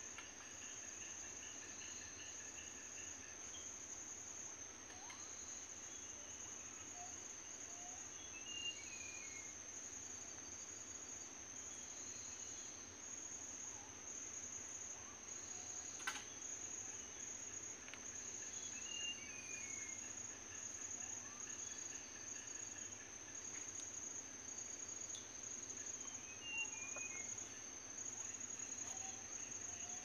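Steady high-pitched drone of crickets or other insects, with a bird singing a short falling phrase three times, roughly ten seconds apart. Other scattered bird calls include a rapid pulsing call in the first few seconds, and a single sharp click comes about halfway through.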